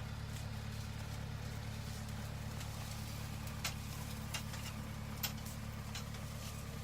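A motor vehicle engine idling steadily, with a low hum, and a few sharp clicks a little past the middle.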